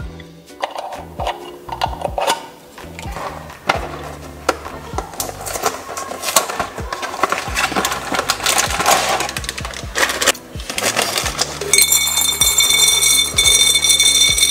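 Glass jars being handled, with scattered clinks and knocks, over background music. Near the end, dry spiral pasta is poured into a tall glass canister: a loud rattling rush with the glass ringing.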